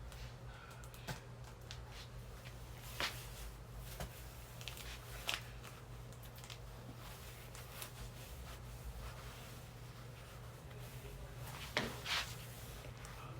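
A few short, sharp clicks and taps, two of them close together near the end, over a steady low hum.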